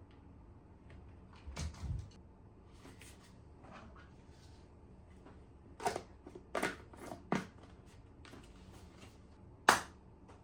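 Scattered light knocks and clicks, as of small objects being handled, with a few sharper taps in the middle and a single louder one near the end.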